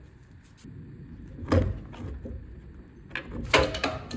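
A few knocks and clunks as the blower's engine and plastic back plate are handled and fitted together, with a louder clatter of several knocks near the end.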